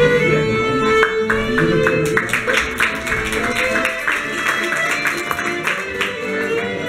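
Piano accordion playing a tune, opening on a long held note. From about a second in until near the end, a run of sharp rhythmic taps beats along with it.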